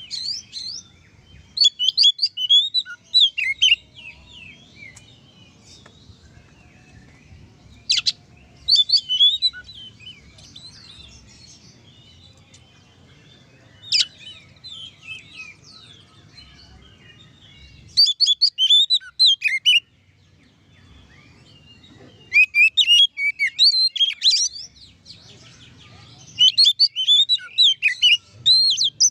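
Oriental magpie-robin (kacer) singing its full, open song: bursts of rapid, varied whistled phrases a few seconds apart, each lasting one to three seconds, over a faint low rumble. This is the kind of song played to provoke other magpie-robins into singing.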